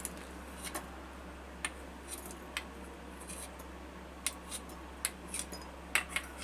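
Metal spoon tapping and clinking against glass tumblers and a bowl as lemon pieces are spooned in: about eight sharp, separate ticks spread out, over a faint steady low hum.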